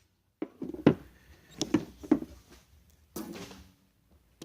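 A few light knocks and clicks of parts being handled at the hardtop's rear latch, then a brief low hum about three seconds in.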